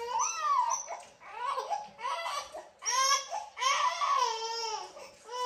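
A baby fussing and crying in a string of short wails that bend up and down in pitch. The fullest cry comes past the middle.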